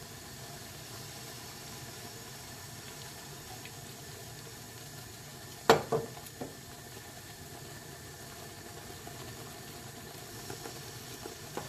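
Melted butter, chocolate and honey simmering faintly in a pan on the stove: a low, steady sizzle. About six seconds in, a metal spoon clinks sharply as honey is spooned in, with a softer clink just after.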